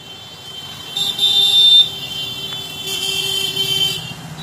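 Motorcycle horns held in long blasts, one about a second in and another near the end, over the low sound of motorcycle engines running in a procession.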